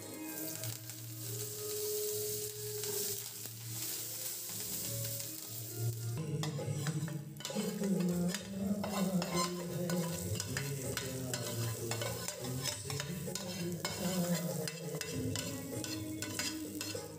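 Mustard-seed tempering with dried red and green chillies sizzling in hot oil in a frying pan as more ingredients are dropped in. About six seconds in, the tempering goes into the curd and a ladle scrapes and taps the metal pan with many quick scrapes and clicks.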